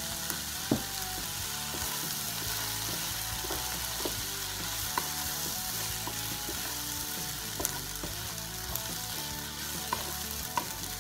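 Rice, onion and diced chicken and seafood sizzling steadily in a frying pan as the rice is browned with the onion. A wooden spatula stirs through it, with a few short scrapes against the pan.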